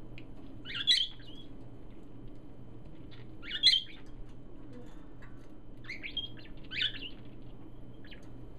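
Pet parakeets chirping in short, scattered bursts, about five in all; the loudest come about a second in and a little before the middle.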